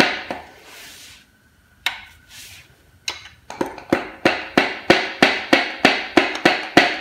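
Piston being tapped down the cylinder bore of a Ford flathead V8 while its connecting rod is guided onto the crankshaft journal: a few scattered clicks, then from about three and a half seconds in a steady run of sharp taps, about three a second.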